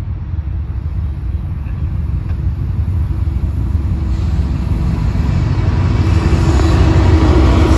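Norfolk Southern GE ES40DC and EMD SD70ACe diesel locomotives approach at the head of an intermodal train. Their rumble grows steadily louder, and a low steady engine drone comes up near the end.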